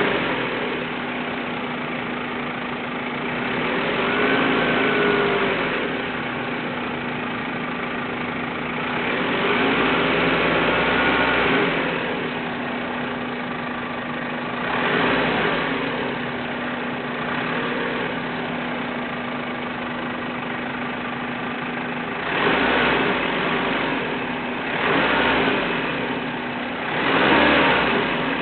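Petrol car engine with a vacuum leak, idling steadily and revved briefly several times, with one longer rev about ten seconds in. The leak hisses at idle and louder with the throttle open, though the hiss is muffled against the engine note.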